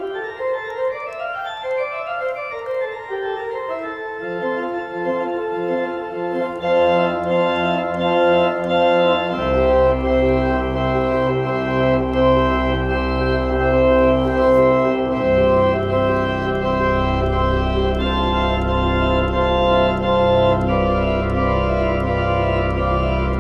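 Restored church pipe organ playing: a rising run of notes over the first few seconds, then full held chords, with deep pedal bass coming in about nine seconds in.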